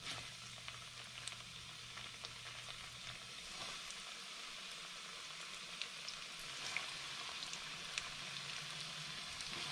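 Flour-and-egg-battered rabbit pieces deep-frying in hot peanut oil in a cast-iron skillet: a steady sizzle with scattered crackling pops, growing a little louder as more pieces go into the oil.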